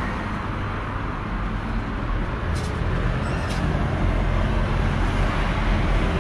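Steady road traffic on a busy high street, a low rumble of engines and tyres that grows louder in the second half as a vehicle draws near, with two faint clicks about halfway.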